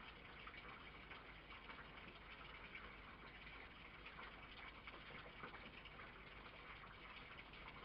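Near silence: a faint, steady hiss with a light crackle.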